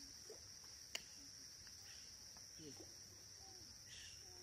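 Faint, steady high-pitched insect chorus, with a single sharp click about a second in.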